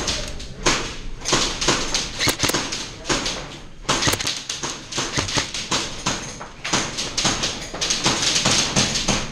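Airsoft game action: several bursts of rapid clicking from airsoft guns firing, mixed with a steady run of footsteps and knocks.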